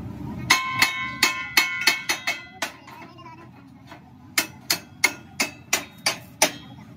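Hand hammer striking a steel rod, driving it through the holes of a welded steel hinge bracket on a tractor front blade frame. Two runs of blows come about four a second, the first run with a clear metallic ring, and there is a pause of over a second between them.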